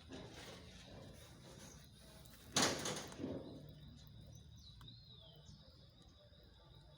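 A short scraping rush of noise about two and a half seconds in, with a smaller one just after, over a low background.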